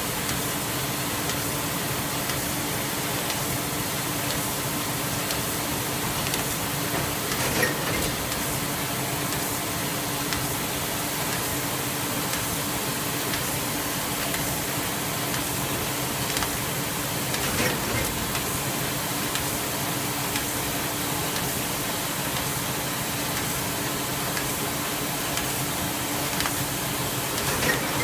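Steady running-machinery noise: a constant hiss over a low hum, with a brief clatter three times, about ten seconds apart.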